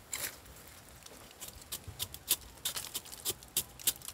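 A knife scraping the bark of a janaguba tree trunk in short, sharp, irregular strokes, about two or three a second, starting about a second and a half in. The scraping opens the bark to bring out its milky latex.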